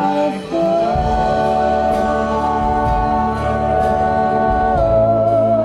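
Church gospel singing by a group of voices, holding one long sustained chord for several seconds before the notes shift near the end.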